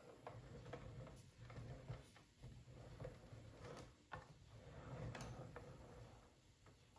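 Faint, scattered light clicks and knocks, a few to the second, over a low hum.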